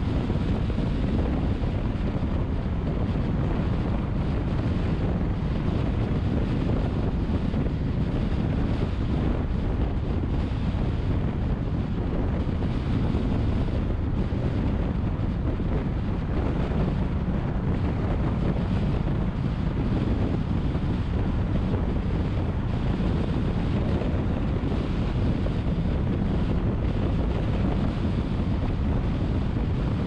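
Steady road and wind noise of a car travelling at expressway speed: an even, deep rush of tyres and air that never changes.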